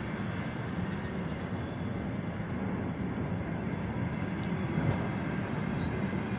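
Container freight train's flatcars rolling past, a steady rumble of steel wheels on the rails.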